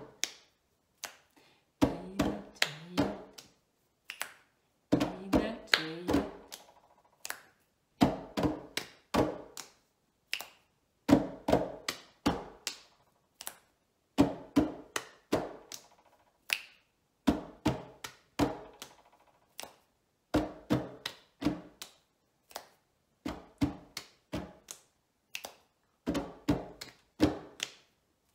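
Two pairs of hands slapping and tapping a wooden table top in a repeating clapping-game rhythm at a slow, steady tempo, without music. Each pass is a cluster of several sharp strokes, and a new cluster comes about every three seconds.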